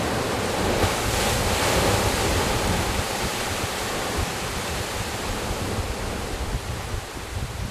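Sea surf surging and breaking in a narrow rocky gorge: a steady wash of churning water, strongest in the first two seconds, with wind buffeting the microphone.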